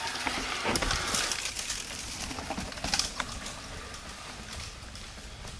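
Mountain bike rolling down a rocky dirt trail past the listener, tyres crunching and knocking over stones, with the sharpest knocks about a second in and again around three seconds in, then fading as the bike rides away.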